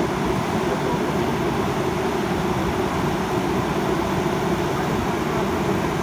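JCB backhoe loader's diesel engine running steadily while the rear backhoe boom swings out and lowers its bucket.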